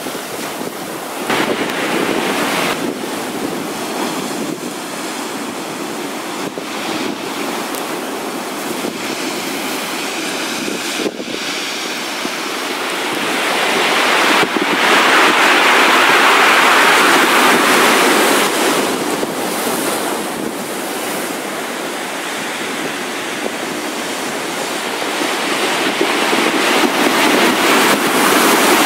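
Storm waves crashing and surging against a stone harbour wall, with wind buffeting the microphone. The surf grows louder about halfway through as a big wave breaks, and again near the end.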